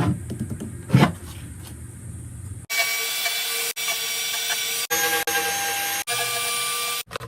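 Wood being worked with tools: a few sharp knocks, then a run of short, abruptly cut stretches of a tool cutting wood with a steady hiss and whine.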